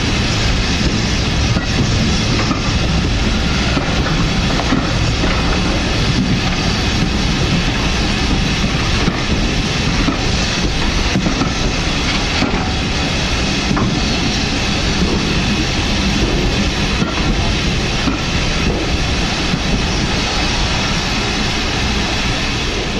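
Railway passenger coaches rolling past close by: a steady rumble of wheels on rail with clicks every second or two as the wheels cross the rail joints.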